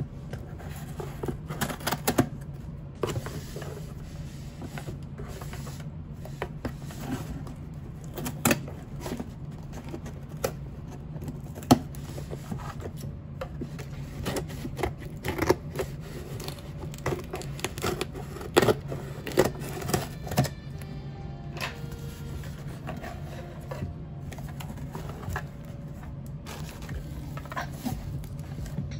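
Long acrylic fingernails tapping, scratching and handling a cardboard shipping box as it is turned over and opened: irregular sharp clicks and taps.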